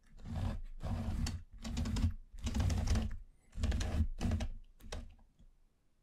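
Popsicle-stick model house being turned by hand on a tabletop, its wooden base scraping and clattering in about six short bursts, then a few light clicks.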